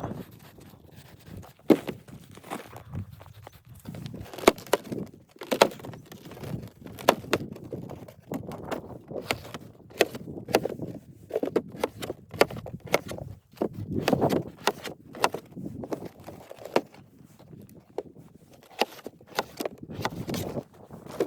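Irregular sharp knocks and clicks, about one or two a second, with soft rustling between them.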